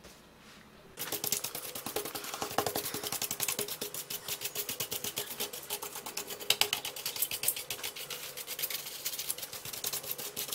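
Rapid, even clicking, about ten clicks a second, starting about a second in: a ratcheting screwdriver working the screws of a laptop's mainboard and fan assembly.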